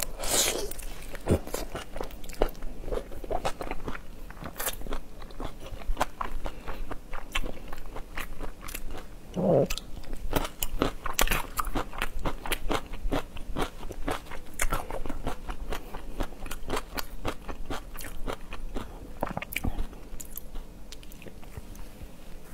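Close-miked eating: biting into a whole marinated shrimp and chewing it, the shell crunching, with a dense run of small crisp clicks and wet mouth sounds.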